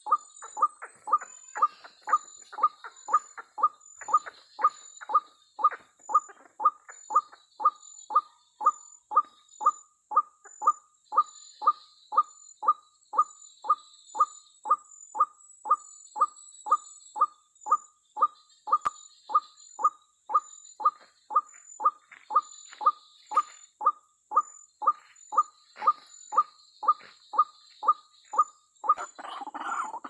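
White-breasted waterhen (ruak-ruak) calling, one short harsh note repeated very evenly about twice a second without a break. A rustling noise comes in near the end.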